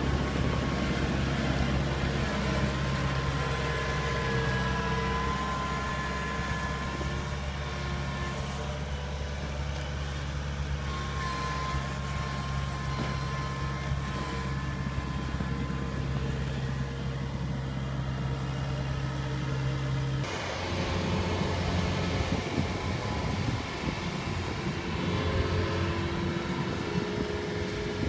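Diesel engine of a Kubota crawler combine harvester running steadily, with a wavering whine over the low engine note. About twenty seconds in the sound changes abruptly to a rougher, uneven run of another combine harvester working in a flooded field.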